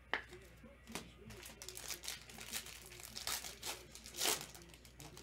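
Foil trading-card pack wrappers crinkling and tearing as packs are opened, a quick run of sharp crackles with the loudest about four seconds in.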